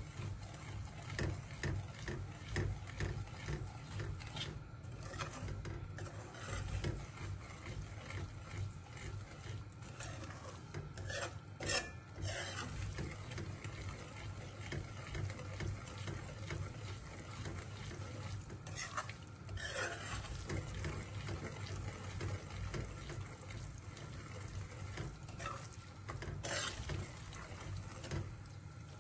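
Metal ladle stirring and scraping semolina roasting in ghee in a metal kadhai: a steady run of rasping strokes, with a few louder knocks of the ladle against the pan. The semolina is being roasted in ghee until it browns and smells fragrant.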